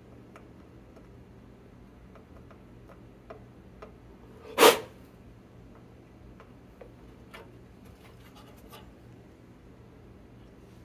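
A spring-loaded manual solder sucker fires once with a single loud snap about halfway through, pulling solder from a joint to free a component stuck in the circuit board. Faint small ticks of tools being handled come and go around it.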